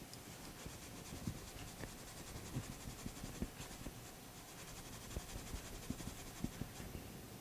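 Steel wool rubbing over the surface of a metal coin ring: a faint, scratchy scrubbing with scattered light knocks.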